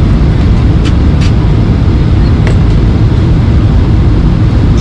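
Boeing 737-800 passenger cabin noise: a loud, steady low rumble of engines and airflow, with a few faint clicks.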